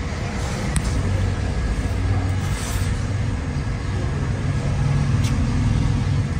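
Steady low rumble of road traffic, swelling slightly near the end, with a faint steady hum. A couple of light clicks come from a metal fork against a ceramic plate.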